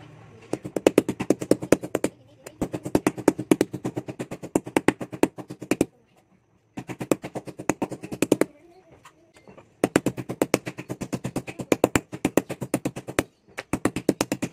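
Metal meat tenderizer mallet pounding a raw pork cutlet on a plastic cutting board. The blows come quickly, about eight a second, in runs of a few seconds broken by short pauses, as the cutlet is flattened and tenderized.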